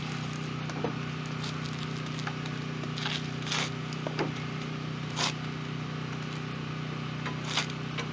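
A foam polishing pad smearing runny chrome polish over a plastic headlight lens, a few short rubbing swishes, before the polishing drill is run. A steady low hum runs underneath.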